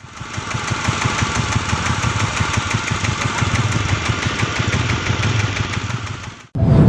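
A wood crusher machine running steadily, an engine-like drone with fast even pulsing. It cuts off abruptly near the end, and music starts.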